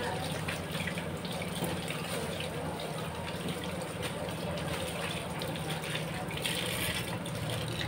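Water running steadily, as from a tap filling a container or rinsing in a sink, over a steady low hum; the rush grows brighter briefly near the end.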